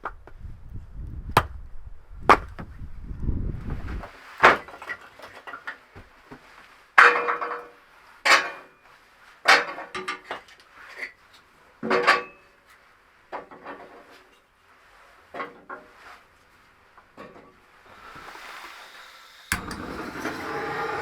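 Tool blows on wood: a series of sharp knocks, some with a short ringing tail, spaced a second or more apart and growing lighter and sparser toward the end. Near the end a steady rushing noise comes in suddenly.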